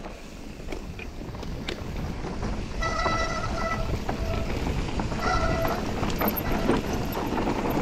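Mountain bikes descending loose, dusty trail: tyres crunching and skidding over dirt and rock, frames and parts rattling, with wind on the helmet cameras. Twice a disc brake squeals briefly, the first time about three seconds in for around a second, the second time shorter.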